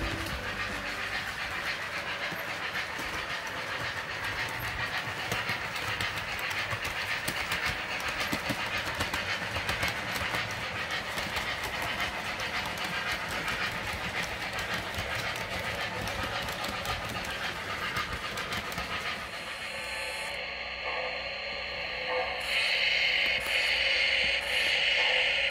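O gauge model train cars rolling along three-rail track, the wheels clicking rapidly and steadily. Near the end a louder hiss of steam sound effects sets in, coming and going in short blocks.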